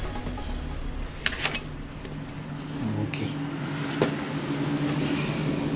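A few sharp metallic clicks and clinks of tools and bolts on the motorcycle while the engine guard is unbolted, over a steady low hum.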